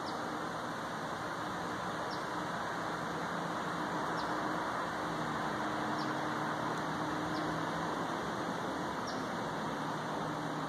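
Steady outdoor rushing noise with a faint low hum under it, swelling slightly midway. A bird gives a short, faint high chirp every couple of seconds.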